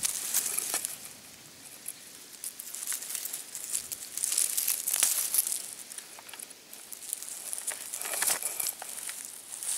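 Dry grass rustling and crackling close to the microphone in irregular bursts, with many small dry clicks.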